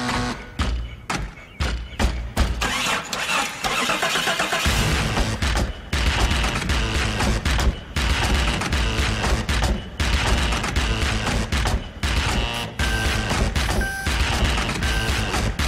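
Electronic music with a heavy, steady beat that kicks in about four seconds in, with short repeated beeps near the end.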